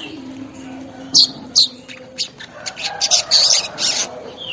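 Manyar (weaver bird) song: two sharp, high chip notes about a second in, then a rapid run of buzzy, chattering notes through the second half.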